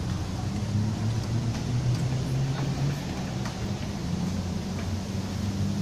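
Low steady hum of an engine running, its pitch drifting slightly, with a few faint clacks from skateboards on the ramps.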